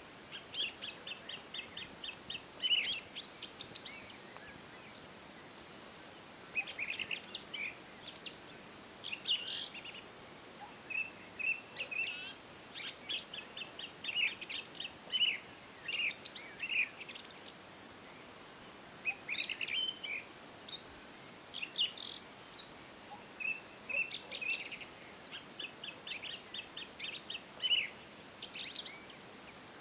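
Small birds chirping and singing: clusters of short, high chirps and quick trills, over a faint steady hiss.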